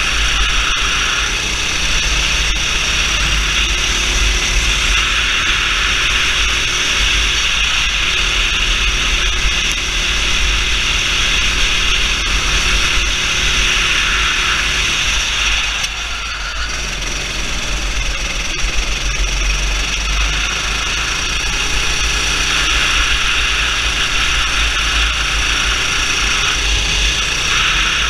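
Go-kart engine running hard, its pitch slowly climbing as it accelerates, easing off briefly about halfway through and then building again. A heavy low rumble runs under it throughout.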